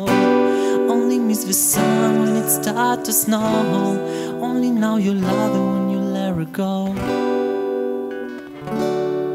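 Tanglewood DBT SF CE acoustic-electric guitar strummed in a steady rhythm, with a man's voice singing a drawn-out melody over it. The playing eases off shortly before the end, then a fresh strum comes in.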